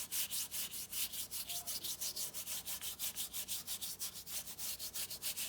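Watercolour paintbrush scrubbing back and forth across paper in rapid, even strokes, about eight a second, a dry scratchy rubbing.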